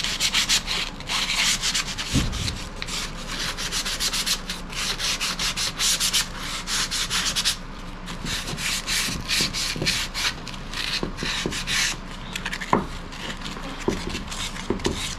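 A folded sheet of sandpaper rubbed by hand along the cut edges of an MDF brace in quick back-and-forth strokes, with a couple of light knocks of the board.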